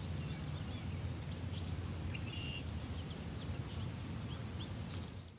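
Outdoor ambience: small birds chirping in many short calls over a steady low rumble, fading out near the end.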